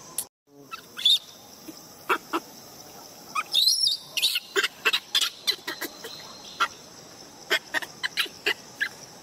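Baby macaque giving a run of short, sharp, high-pitched squeaks in two bouts, over a steady insect drone.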